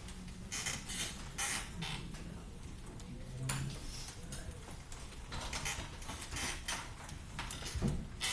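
Classroom ambience of students working quietly at desks and laptops: scattered short clicks, rustles and creaks over a low steady hum.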